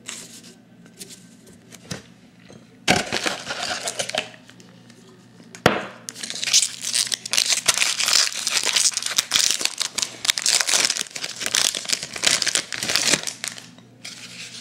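Foil wrapper of a baseball card pack crinkling and tearing as it is opened: a short rustle about three seconds in, a sharp snap near six seconds, then several seconds of continuous crinkling.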